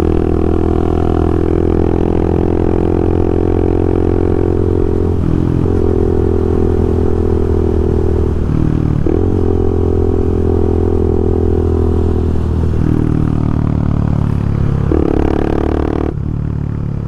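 Honda Twister's single-cylinder engine running through an aftermarket sport exhaust while riding under steady throttle. Its pitch briefly drops and climbs again several times, and the throttle eases off near the end.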